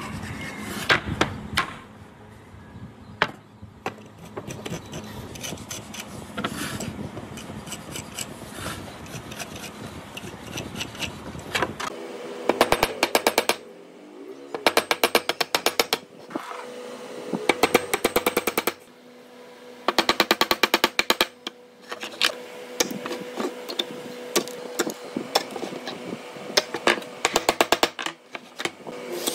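A marking gauge scraping and clicking along a wooden board. From about halfway on, a hammer taps small nails into the board's edge in several quick bursts of rapid light strikes, each burst about a second long.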